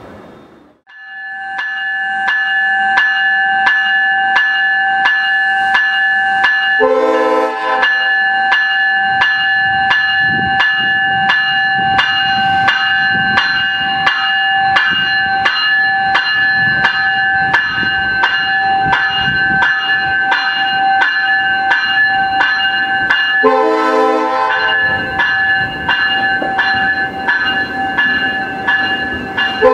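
Level-crossing bell ringing steadily at about two strokes a second while a VIA Rail passenger train passes with a low rumble and wheel clatter. A train air horn sounds a short blast about seven seconds in and a longer one near 24 seconds.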